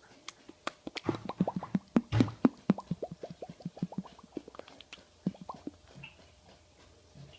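A baby of about six months making popping noises with his mouth: a fast run of short lip pops, roughly five a second, each dropping a little in pitch, loudest about two seconds in, followed by a few scattered pops.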